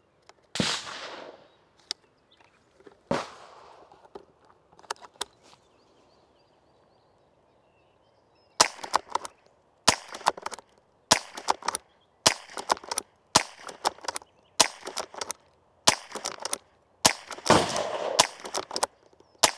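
Derya TM22 LA-18 lever-action .22 LR carbine firing: two shots in the first few seconds, then a steady string of about ten sharp cracks, roughly one a second. Smaller metallic clicks of the lever being cycled follow each shot.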